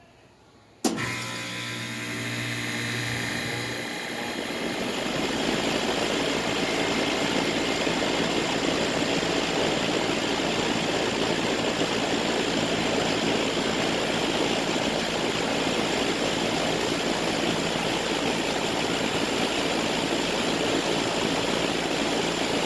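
A 2011 Goodman central air conditioner's outdoor unit starting up. It kicks on with a sharp click about a second in and hums low for a couple of seconds, then a steady whooshing fan-and-compressor noise builds up around four seconds in and runs on evenly.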